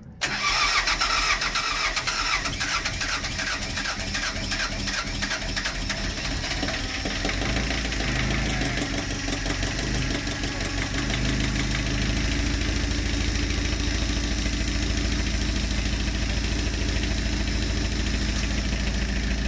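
Boat's inboard diesel engine, stood unused all winter, cranking and starting: an uneven, pulsing run for the first several seconds as it catches, then settling into a steady idle by about eleven seconds in.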